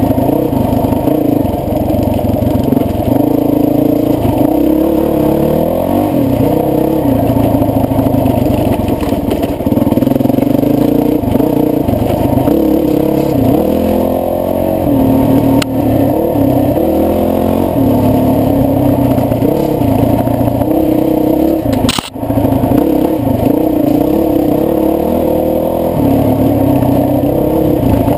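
Honda CRF450X's single-cylinder four-stroke engine pulling along a dirt trail, its pitch rising and falling as the throttle is worked on and off. A single sharp knock cuts in about three quarters of the way through.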